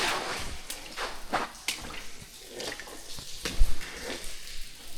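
Footsteps on a wet tunnel floor: an irregular series of short scuffs and splashy treads.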